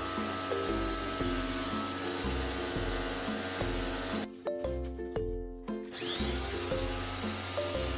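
Background music over a steady hissing machine noise. The noise cuts out for about two seconds midway, then starts again with a rising whine as its motor spins back up.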